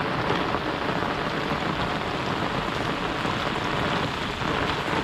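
Heavy monsoon rain falling steadily, a dense even hiss of rain on the ground and surfaces.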